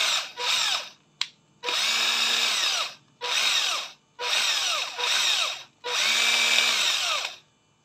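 Panasonic 14.4 V cordless drill driver run in short trigger bursts, about six times. Each time the motor whines up to speed and winds back down. It is being test-run to show that the drill still works on its battery.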